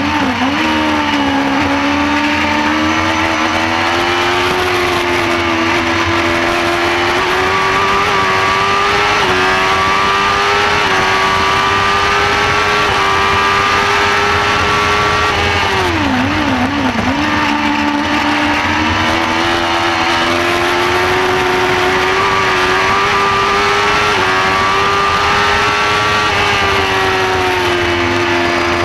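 Shortcar race car's engine heard from the cockpit at high revs, holding a high steady note that climbs slowly on the straights. About sixteen seconds in the pitch drops in a couple of quick dips, then settles lower and climbs again, over a steady rush of wind and road noise.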